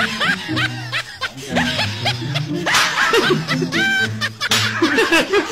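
Several men laughing and snickering in short bursts over background music.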